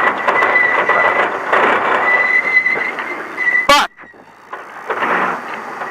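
Ford Ranger desert race truck running hard over rough ground, a steady rattling din with a thin high whine through it. About three and a half seconds in there is one sharp crack, and the noise drops off suddenly before partly coming back.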